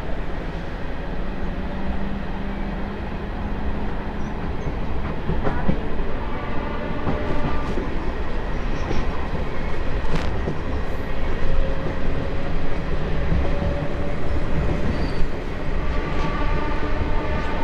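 Diesel-electric multiple unit (DEMU) train running on rails: a steady wheel-and-rail noise with a few sharp clicks and brief faint whining tones.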